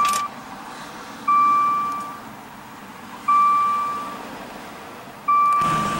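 Maserati Ghibli's door-open warning chime, one soft ding about every two seconds, four in all. Near the end the car's Ferrari-built 3.0-litre twin-turbo V6 starts and settles into a steady run.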